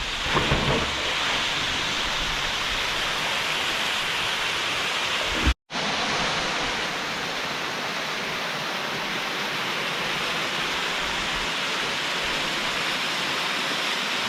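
Waterfall: a steady rush of falling water. The sound drops out briefly about five and a half seconds in, then carries on.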